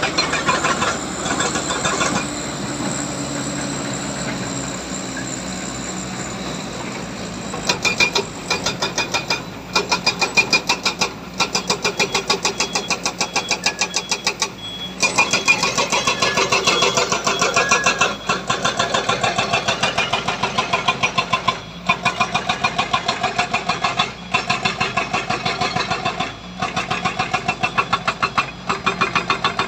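Heavy diesel engine running under load. The sound is fairly steady at first; from about eight seconds in it turns into a rapid, even pulsing of about five beats a second, broken by short pauses every few seconds.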